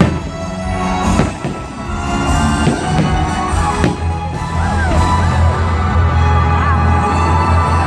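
Fireworks show music playing loudly with a heavy bass line, with firework bangs at the start, about a second in and about four seconds in.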